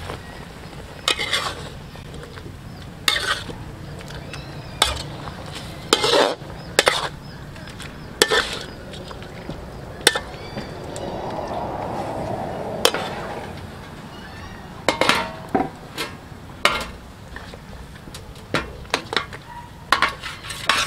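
Metal spatula scraping and knocking against a steel wok at irregular intervals as pig tails are stirred in a sizzling sauce, with a swell of sizzling midway. Near the end, pieces are set down on a metal tray.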